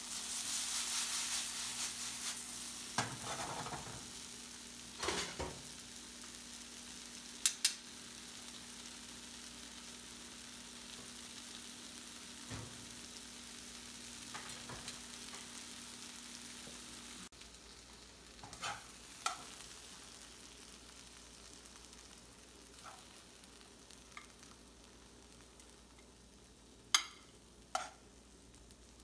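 Vegetables sizzling in a hot oiled pan as they are tossed and stirred, with a few sharp clicks of utensil against pan. The sizzle is loudest at first and eases off. About two-thirds of the way through it stops abruptly, leaving only occasional light clicks.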